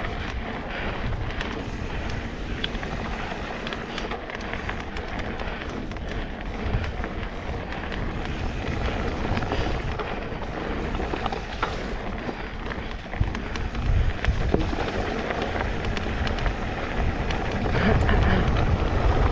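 Mountain bike rolling fast down a dirt trail: a steady crackle and rattle of tyres over loose ground and the bike's frame, with a low rumble and scattered small knocks.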